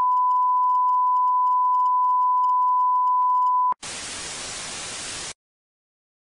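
Television test-card reference tone: a steady, pure high beep that cuts off with a click near four seconds in, followed by about a second and a half of TV static hiss.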